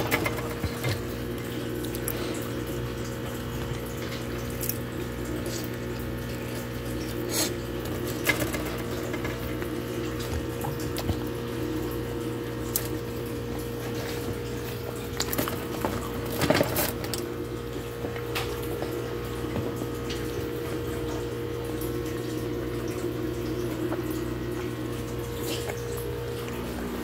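Steady background hum and hiss with a few held tones, broken by occasional short clicks and scrapes of a metal fork on the foil pizza tray, the loudest a cluster about two-thirds of the way through.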